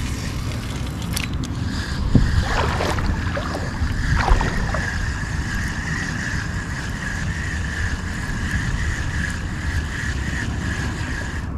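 Wind on the microphone over shallow lagoon water, as a steady low rumble. A thin, steady high-pitched whine joins it about a second and a half in.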